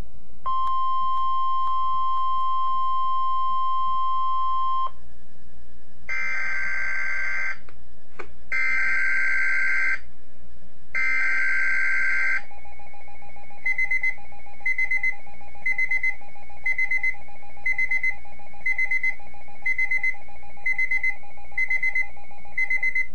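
Weather radio alert tones: a steady high alert tone for about four seconds, then three short bursts of screeching digital data (the SAME alert header), then an alert receiver beeping about one and a half times a second over a faint steady tone.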